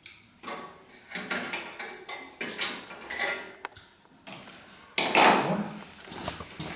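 Irregular metallic clinks and rattles of hand tools and ATV exhaust parts being handled, with a sharp click about three and a half seconds in and a louder clatter about five seconds in.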